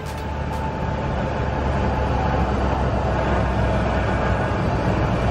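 Cessna 182's 300 hp fuel-injected engine and propeller running with a steady low rumble, heard from inside the cockpit as the plane rolls along the runway just after touchdown.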